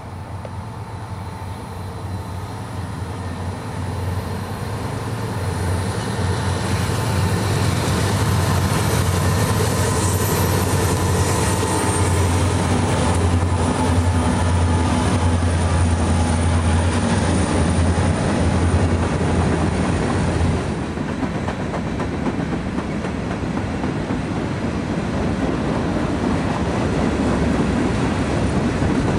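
Norfolk Southern diesel freight train passing close by. The locomotive's engine drone grows louder as it approaches and goes by. About two-thirds of the way through, the drone drops away, leaving the steady rolling noise of covered hoppers and tank cars on the rails.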